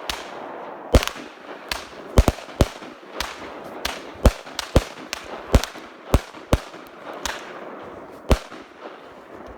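Consumer fireworks going off in a show: a run of sharp bangs at uneven spacing, about one or two a second, over a steady crackling hiss.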